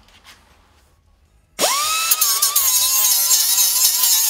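Small pneumatic sander on an air hose starting up about a second and a half in, spinning up with a quick rising whine and then running loud and steady with a hiss of air, sanding the cut edges of the truck's radiator support.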